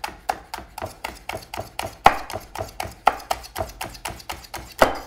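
Chef's knife slicing a Fresno chili into thin strips on a wooden cutting board: quick, even taps of the blade on the board, about four a second, with a louder tap about two seconds in and another just before they stop.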